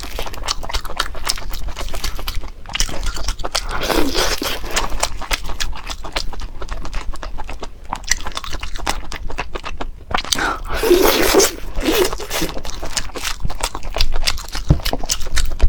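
Close-miked eating sounds: seafood being chewed with a dense run of crunches and small wet clicks, and two louder mouthfuls, about four seconds in and about eleven seconds in.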